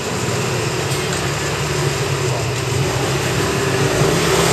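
Steady, loud street din with a low machine hum underneath and no distinct events.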